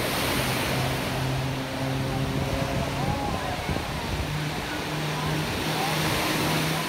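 Aerobatic propeller plane's engine droning overhead during a tumbling manoeuvre. The drone drops out briefly about three seconds in and comes back at a slightly higher pitch. A constant hiss of wind and crowd noise runs underneath.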